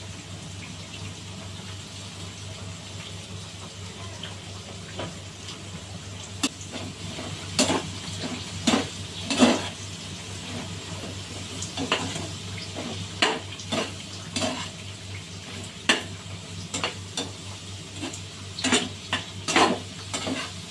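Pork large intestine sizzling in a pan while a spatula stirs it, scraping and knocking against the pan in irregular strokes that begin about six seconds in. A steady low hum runs underneath.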